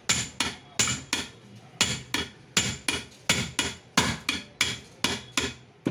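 Hammer blows on the end of a steel motor shaft, a quick run of about three taps a second with a metallic ring. The rotor and its new bearing are being knocked home into the pump-end cover of a 1 HP monoblock water pump motor.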